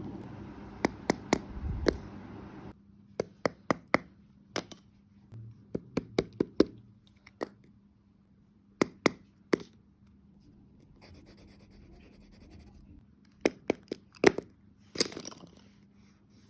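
Scattered sharp taps and clicks of objects being handled and set down, irregular and a second or so apart, over a faint steady hum.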